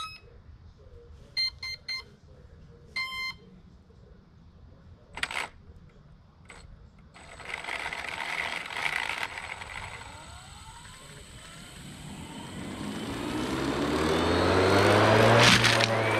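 Electronic speed controller beeping short tones through a brushless motor, then the prototype combat robot's hammer-saw weapon spinning up: a motor whine rising in pitch and getting steadily louder over the last several seconds, loudest just before the end.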